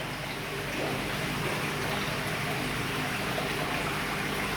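Water running steadily into a koi fry pool, an even splashing trickle.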